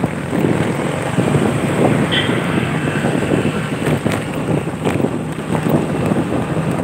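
Wind buffeting the microphone from travelling along a road, with a vehicle engine running steadily underneath.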